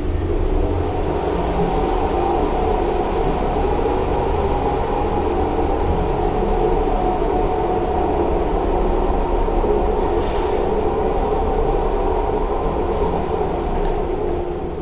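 Funicular car running steadily on its rails: an even rumble with a thin, steady high-pitched tone.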